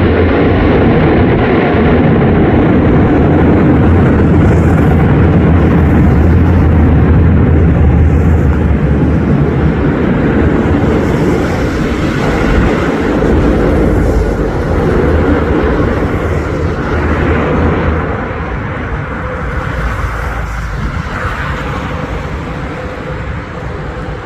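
Airbus A400M's four turboprop engines, loud and steady with a low drone, dying away gradually over the last several seconds.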